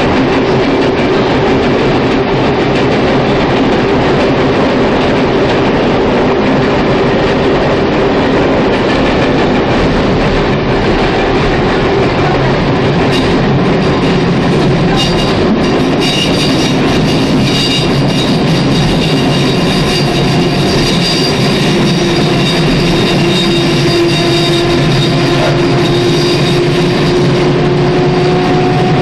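Running noise inside a Hamburg S-Bahn BR 471 electric multiple unit under way: a steady, loud rumble of wheels and running gear, with a humming tone that rises slightly in pitch over the last several seconds.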